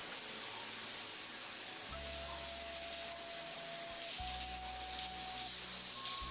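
Shower water spraying steadily onto a person rinsing his hair, an even hiss of falling water. Faint background music of slow held notes under it.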